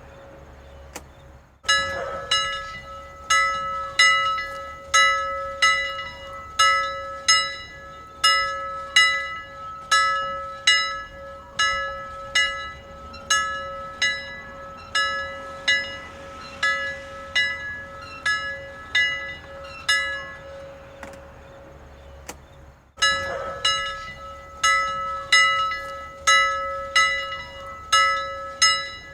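A bell rung over and over in a steady rhythm, every stroke sounding the same clear ringing pitch. It starts about two seconds in, stops for a couple of seconds near the twenty-second mark, then starts again.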